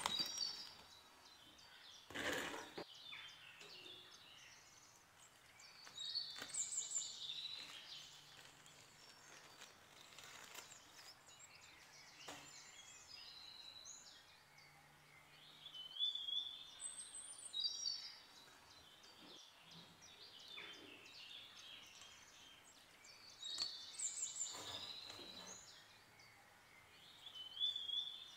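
Birds chirping and calling in short bursts of high, quick phrases that come back every several seconds. There is a short burst of noise about two seconds in.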